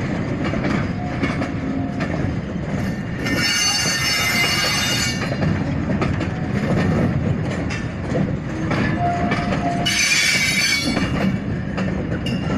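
Loaded freight wagons rolling past steadily, wheels clicking over rail joints. Twice, about three seconds in and again near ten seconds, the wheels set up a high squeal against the rails, as they do on a curve.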